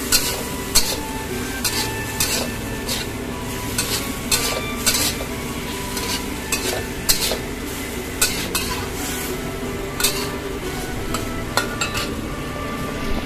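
A metal spatula scraping and clicking against a wok in irregular strokes as cauliflower and bell peppers are stir-fried, over a steady sizzle of the vegetables in a bubbling cornstarch-thickened sauce.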